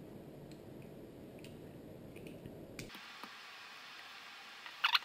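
Faint scattered clicks and taps from handling the opened iPhone 3GS's frame and display assembly during disassembly, with a sharper, louder cluster of clicks near the end.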